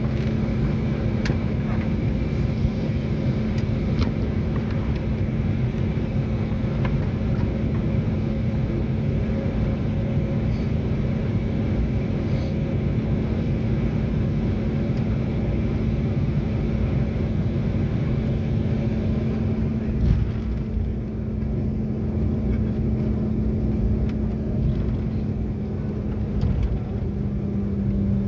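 Airliner cabin noise while taxiing after landing: the steady drone of the engines over the rumble of the wheels and airframe. There is a thump about twenty seconds in, and the drone drops slightly in pitch near the end.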